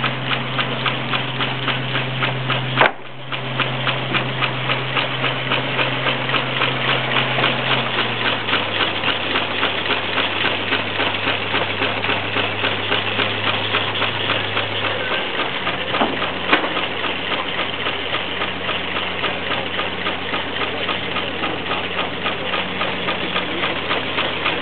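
20 hp Sawyer Massey steam traction engine running a belt-driven sawmill, its exhaust beating fast and evenly. Under it a steady low hum drops in pitch twice, about eight and fifteen seconds in. A sharp click and a brief drop-out come about three seconds in.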